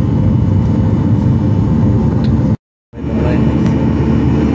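Steady drone of a jet airliner's cabin in the climb: turbofan engine noise and rushing airflow, heard from a window seat beside the engine. About halfway through it cuts out for a split second and comes straight back.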